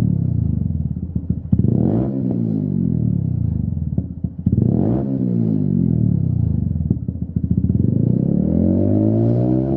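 Honda CBF125's single-cylinder four-stroke engine revved through a Lextek XP10 aftermarket silencer. Two quick throttle blips, about two and five seconds in, each sink back toward idle, then a slower, longer rev builds near the end.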